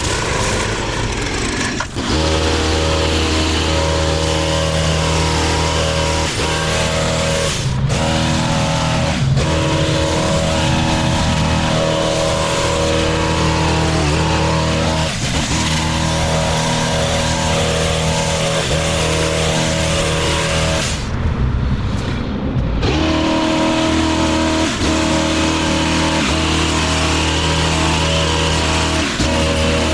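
Gas hedge trimmer's small engine running at high revs while it cuts through an overgrown bush, a steady engine drone with short dips as the throttle is worked.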